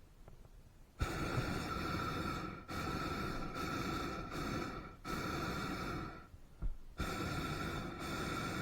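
Hot-air balloon propane burner firing in four long blasts, a loud hiss carrying a steady whistling tone. It starts about a second in and cuts off briefly between blasts.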